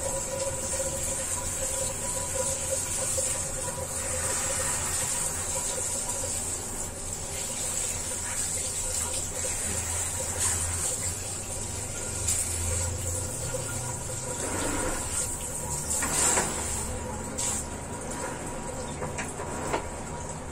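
Handheld shower running onto a tiled floor and a small dog's paws as they are rinsed: a steady hiss of spraying water, with a few short knocks and splashes in the second half.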